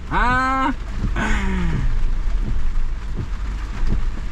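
A man whoops in celebration, a held cry under a second long, then gives a second yell that falls in pitch. Underneath is the steady low running of a Ford Bronco's engine, with rain.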